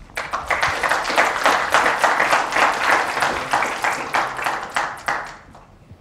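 Audience applauding: many hands clapping in a dense patter that starts right away and dies away near the end.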